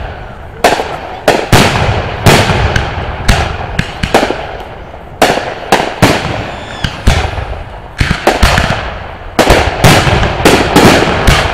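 Aerial firework shells launching and bursting in quick succession: a long string of sharp bangs, one or two a second, each trailing off. The bangs come thickest near the end.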